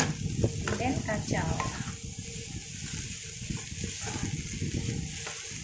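Chopped broccoli and scrambled egg sizzling in a hot non-stick pan as they are stirred and tossed with a wooden spatula, with a steady hiss of frying under the scraping strokes.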